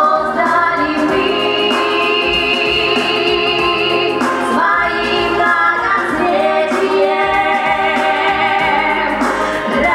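Two women singing a song into stage microphones over musical accompaniment, with long held notes.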